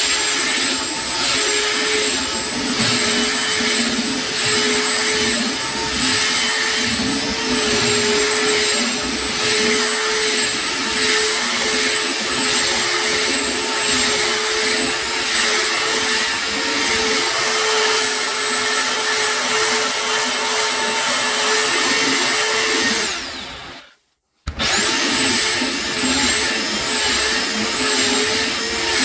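Electric sander running steadily against a wooden tabletop: a high motor whine over a rough grinding hiss. About 23 seconds in it winds down and stops for under a second, then starts up again.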